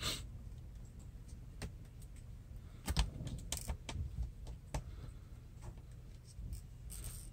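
Irregular light clicks and ticks of a small screwdriver working the screws that hold a laptop's LCD panel in its metal frame, with a few sharper taps around three to four seconds in.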